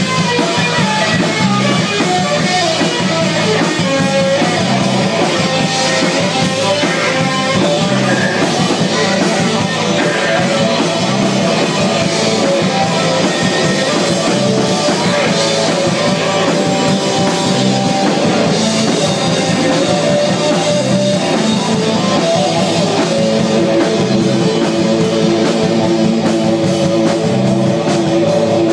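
Rock band playing live: electric guitar and drum kit to the fore over bass and keyboard, loud and unbroken.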